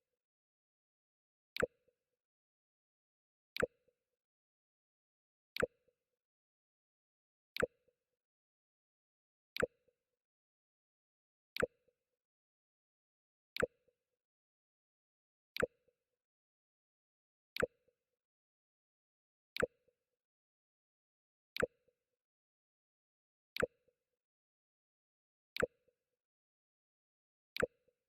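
Mac OS X 'Jump' system alert sound playing over and over: one short, sharp sound about every two seconds, with silence in between.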